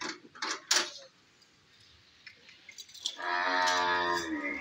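A humped bull lowing once, a long moo of about a second and a half that falls slightly in pitch at the end, after a few short clicks.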